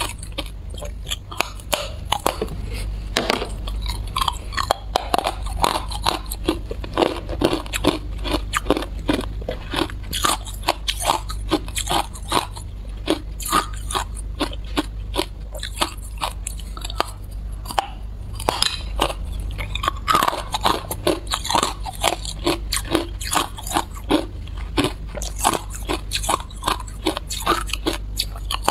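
Hard clear ice being bitten and chewed: rapid, irregular crunching and cracking, several sharp cracks a second, going on without a break.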